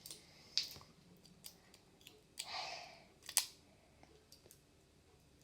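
Clicks and handling noises from a small plastic putty container being unwrapped. A brief crinkling rustle comes about two and a half seconds in, followed by a sharp click.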